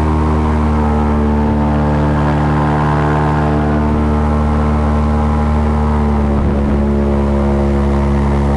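Airboat engine and propeller running at speed, a loud steady drone whose pitch sags a little in the middle and rises again near the end.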